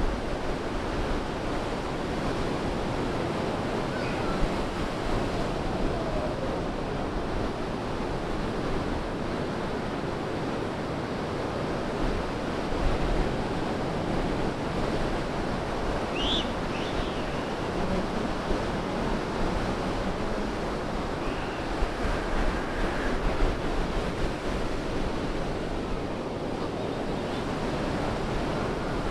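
Ocean surf breaking offshore and washing up the sand around the pier pilings, a steady rush of waves.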